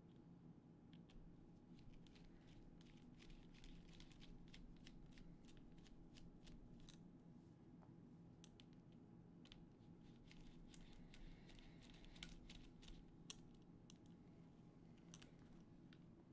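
Near silence: faint scattered clicks and rustles of small drone parts and connectors being handled, over a low steady room hum.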